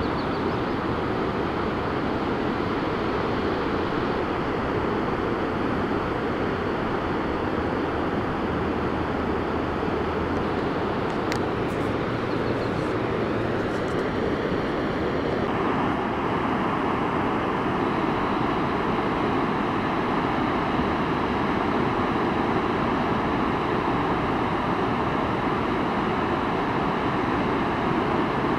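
Steady rushing noise of the flooded Skeena River running fast in high water. Its tone changes about halfway through, and a few faint clicks come shortly before.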